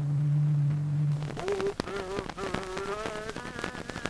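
A steady low buzzing drone, which stops about a second and a half in. Then a voice on a crackly early sound recording takes over, in short wavering held notes broken by clicks and surface noise.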